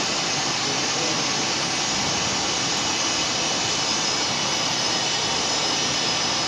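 Jet airliner engine sound played over the model airport's loudspeakers: a steady rushing roar with a faint high whine, holding at one level.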